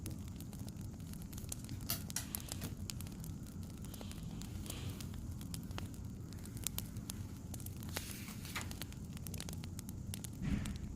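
Wood fire crackling: a steady low rumble with scattered pops and snaps, and a soft thump near the end.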